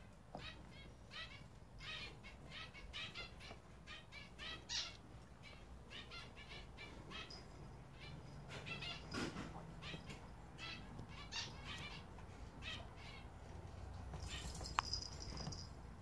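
Small birds chirping: quick runs of short, high chirps, repeated again and again, with a thin steady high tone near the end.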